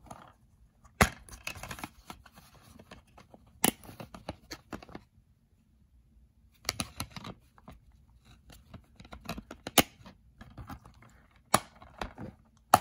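Plastic DVD case being handled, opened and shut, with several sharp clicks and snaps of the case and the rustle of fingers on it, and a quiet pause in the middle.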